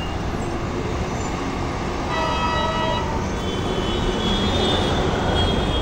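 Steady road traffic on a busy multi-lane highway, with a vehicle horn sounding about two seconds in for roughly a second and a higher-pitched horn sounding near the end.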